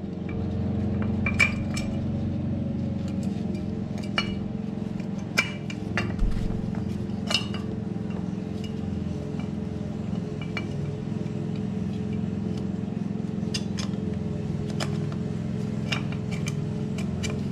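Light metallic clinks, about ten of them at irregular intervals, as a clutch throwout bearing is worked onto its release fork and guide inside a Honda Civic manual transmission's bellhousing. A steady low hum runs underneath.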